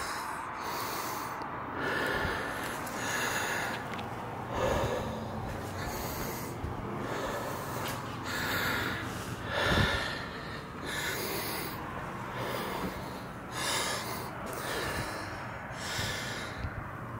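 A man breathing heavily close to the microphone, winded after climbing a long flight of tower stairs: about one breath every second and a half.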